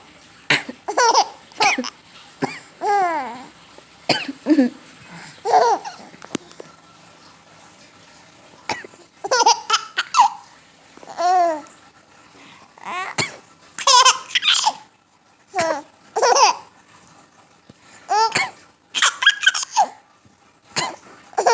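High-pitched fits of laughter that break into coughs, a coughing laugh, coming in short bursts with pauses of a second or two between fits and a longer pause about a third of the way in.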